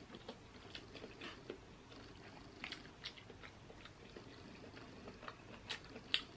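Faint close-miked mouth sounds of a person chewing seafood from a seafood boil: soft wet smacks and clicks at irregular intervals.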